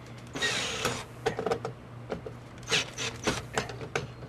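Screwdriver tightening the main power terminal screw of a 100 amp main breaker: a short scraping rush about half a second in, then scattered scrapes and clicks of the tool turning in the screw.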